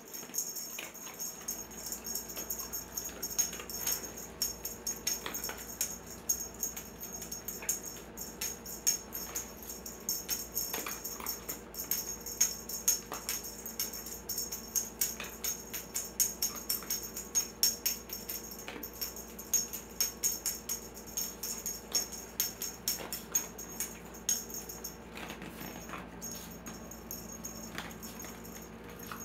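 Cat wand toy being shaken, rattling and jingling in many quick irregular clicks over a steady high jingle.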